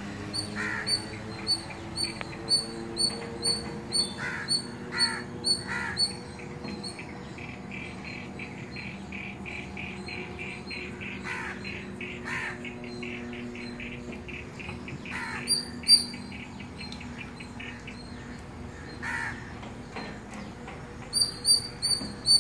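Automatic boom barrier cycling its arm up and down: a low motor hum, with an electronic warning beeper sounding about twice a second while the arm moves. The beeper goes silent while the arm stands fully open, then starts again near the end. A few separate calls, probably birds, come in between.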